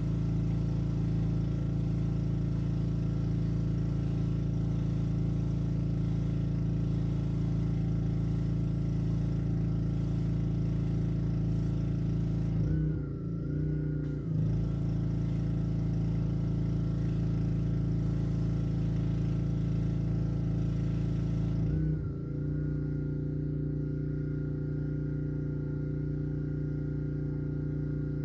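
Honda engine of a Black Max gas pressure washer running steadily. Its note dips and wavers briefly twice, about halfway through and again about three-quarters of the way through.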